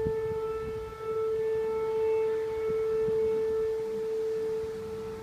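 Steady siren-like drone holding one unchanging pitch, with fainter overtones above it. It is a recording of the unexplained siren-like noise reported over UK towns.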